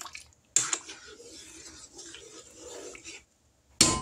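A metal spoon stirring chicken and dumplings in an enamel pot, giving a soft, uneven rubbing and scraping. Near the end it is tapped against the pot with a few sharp, ringing clinks.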